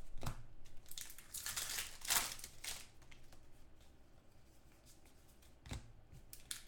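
Foil trading-card pack wrappers crinkling and tearing as cards are handled, busiest in the first three seconds, with a single soft knock near the end.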